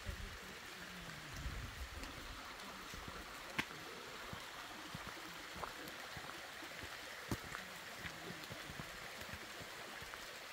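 Steady rushing of a small woodland stream, with a couple of sharp clicks a few seconds apart and a low rumble in the first two seconds.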